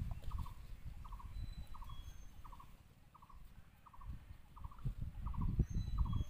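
Water sloshing and splashing around someone wading waist-deep in a pond, easing off about halfway through and picking up again. Behind it, a small animal calls steadily: a short triple note repeated about every 0.7 seconds.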